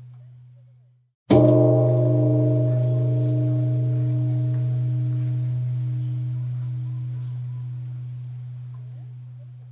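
Temple bell struck once, about a second in, giving a deep low hum with ringing, slightly wavering overtones that die away slowly. Just before the strike, the ring of the previous stroke fades out.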